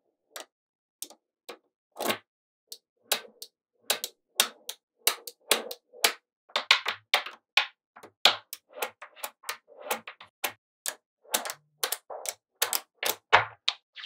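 Small magnetic balls clicking and snapping together as strands of them are joined and pressed into flat slabs: a run of sharp, irregular clicks, sparse at first and coming much faster from about three seconds in.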